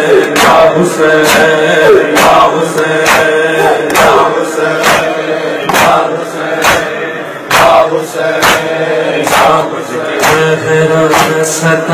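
Male reciter chanting a noha, a Shia lament, over a microphone. Chests are struck in matam in a steady rhythm of about two strikes a second.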